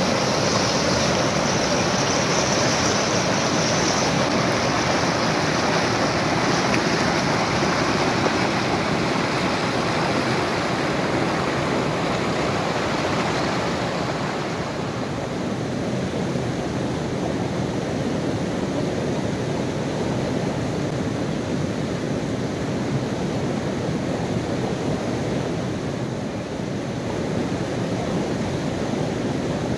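Fast mountain river rushing over rocks in whitewater rapids: a steady, dense rush of water, slightly softer and less hissy from about halfway through.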